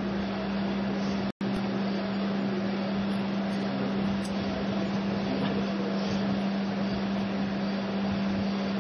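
Steady mechanical or electrical hum with hiss, holding one low tone, cut out for an instant a little over a second in.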